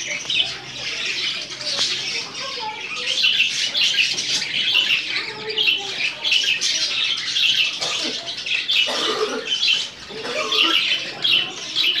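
Budgerigars chattering without a break: a fast stream of high chirps, with lower warbling notes now and then.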